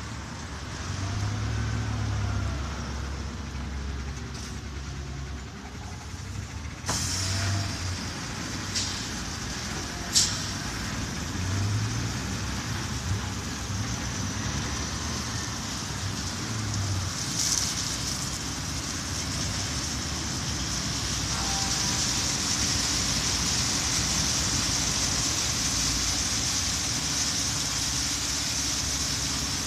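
City bus engine running as the bus creeps through an automatic drive-through bus wash machine. The washer's water spray and rotating brushes add a steady hiss that starts suddenly about a quarter of the way in and grows stronger in the last third. A sharp crack and a short hissing burst stand out midway.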